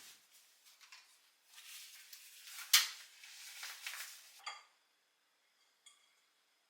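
Dishes and cutlery being handled and set down, with rustling clatter and one sharp clink about three seconds in. The handling stops after about four and a half seconds.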